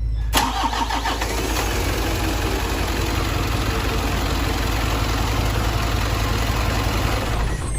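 An engine being started: a sharp onset about a third of a second in, then it keeps running steadily.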